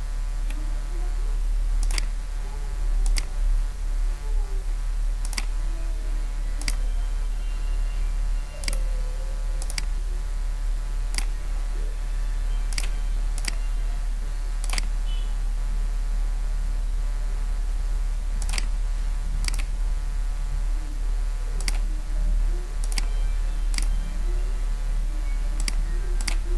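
Computer mouse clicking about twenty times at irregular intervals, over a loud, steady electrical hum with a buzz of overtones.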